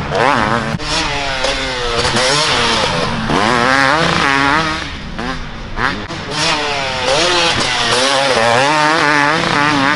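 Dirt bike engine revving hard under a riding rider, its pitch climbing and dropping again and again as the throttle is worked.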